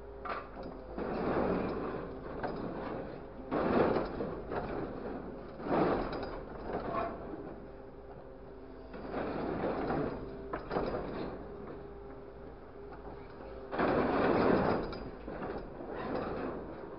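Grapple truck's hydraulic crane being worked from the control levers: a steady engine and pump hum with about five surges of louder mechanical noise a few seconds apart as the boom and grapple move.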